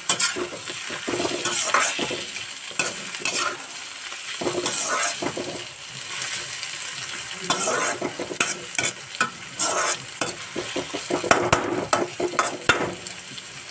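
Chopped vegetables sizzling as they stir-fry in oil in an iron kadhai. A metal spatula scrapes and clicks irregularly against the pan as they are stirred.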